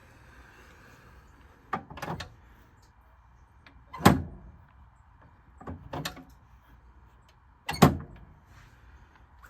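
Four sharp double knocks, each a quick pair of thuds, spaced about two seconds apart over a faint low hum.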